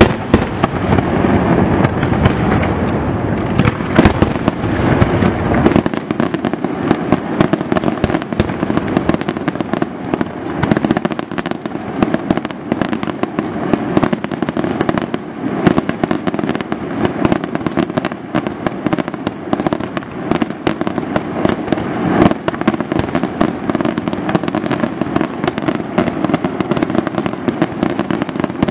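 Aerial fireworks display in a rapid, unbroken barrage of shell bursts and crackling stars. Heavy low booms fill the first several seconds, then give way to a dense stream of crackles and bangs.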